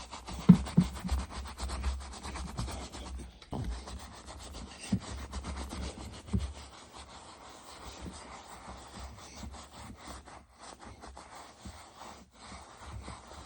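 Brush scrubbing conditioner into a leather baseball glove: a steady scratchy rubbing of bristles on leather, with a few low bumps in the first half.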